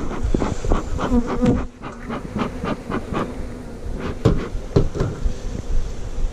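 Honeybees buzzing around an opened nuc, a low hum that comes and goes, over repeated sharp knocks and clicks, the loudest sounds, in clusters about half a second, one to one and a half seconds, two and a half to three, and four to five seconds in.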